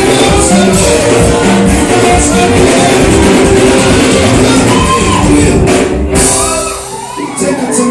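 Live church worship band playing loudly with drum kit, guitar and singing. About six and a half seconds in, the band drops out, leaving voices shouting and singing.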